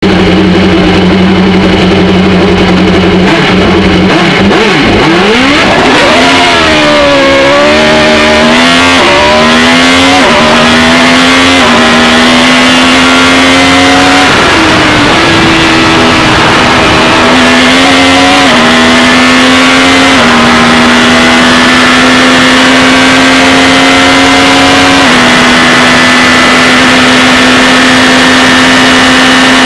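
GP2 racing car's Mecachrome V8, heard onboard at full volume. It holds steady revs on the start line, launches about four seconds in, then revs up through the gears, each rise in pitch dropping back at the shift. The revs fall away sharply around fourteen seconds for a bend before it pulls up through the gears again.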